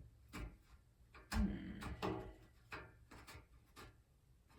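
Clicks, knocks and scraping as the washer's lid lock assembly is handled and pushed against the washer body, trying to seat it in its slot; a half-dozen separate knocks, the loudest a dull thud about a second and a half in.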